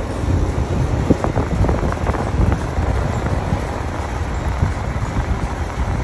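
Lennox central air conditioner condenser unit running during refrigerant charging: a steady low rumble from its fan and compressor, with a few faint clicks about one to two seconds in.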